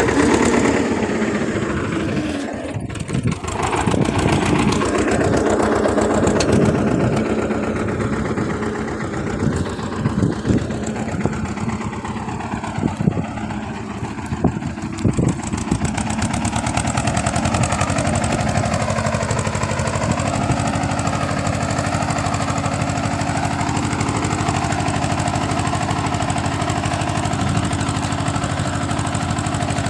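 Eicher farm tractor's diesel engine running steadily under load while it pulls a tine cultivator through soil, with a few sharp knocks in the middle.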